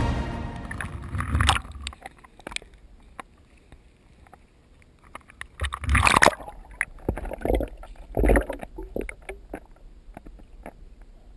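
Water sloshing and splashing against an action camera's waterproof housing at the waterline, in irregular bursts with small clicks and taps in between, loudest about six seconds in.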